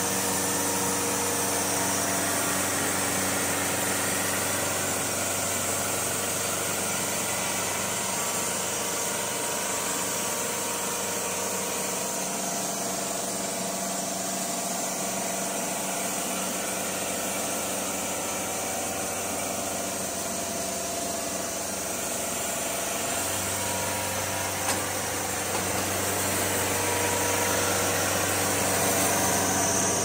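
An engine running steadily at a constant speed. Its lowest hum fades out for several seconds midway, then comes back.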